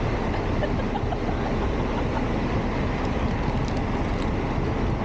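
Steady rumbling running noise of a moving train, heavy in the low end.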